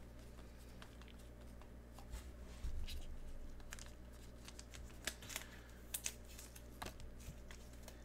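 Faint clicks, taps and rustles of trading cards being handled with nitrile-gloved hands, over a steady low hum.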